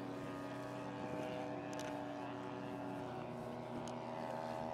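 Model airplane engine running steadily, its pitch dropping slightly about three seconds in.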